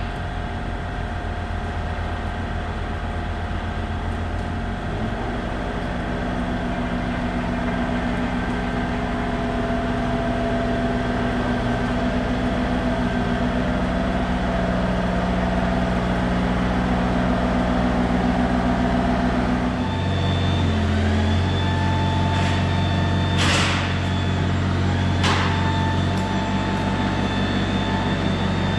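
Compact excavator's diesel engine running steadily while it moves a chained load on tracks. About twenty seconds in the engine note steps up and grows stronger, and a few brief sharp squeaks or clanks come a few seconds later.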